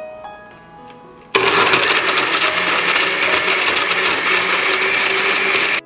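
Electric kitchen blender switching on about a second in and running steadily at full speed, with a steady motor whine, as it blends banana, dates, nuts and milk into a milkshake. It stops suddenly near the end.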